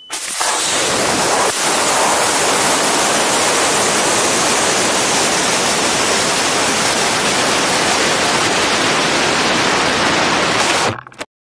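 Steady, loud rush of wind over the microphone of a rocket-borne camera in flight and descending under a parachute. It cuts off abruptly about eleven seconds in.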